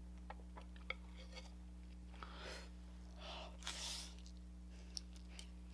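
Spicy ramen noodles slurped off chopsticks: three short, noisy slurps between about two and four seconds in, the last the loudest, after a few faint wet mouth clicks. A low, steady electrical hum runs underneath.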